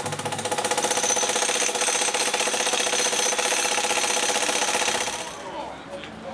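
Corded electric demolition hammer breaking concrete: a fast, steady hammering with a constant tone over it. It cuts off about five seconds in, and quieter sounds follow.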